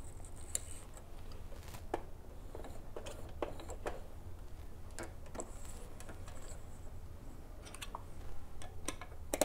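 Small, irregular clicks and taps of hands handling a sewing machine's bobbin, bobbin cover and needle plate while reloading the bobbin, over a steady low hum. The machine is not running.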